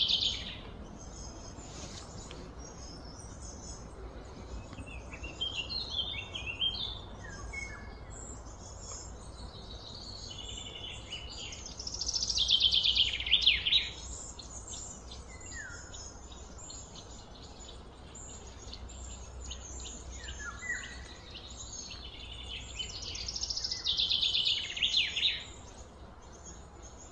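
Birds singing outdoors: a loud, high phrase of rapid notes comes three times, about twelve seconds apart, with scattered chirps and short falling notes between, over a steady low background hum.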